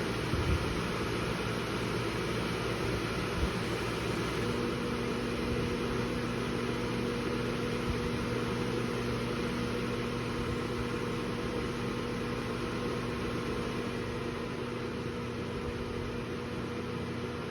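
Vent fan of a KitchenAid microwave hood combination running at full speed with a steady rush of air. About four seconds in it steps down a speed and a steady low hum from the fan motor joins the whir and holds. The owner suspects the hum comes from the speed controls, or perhaps the motor windings.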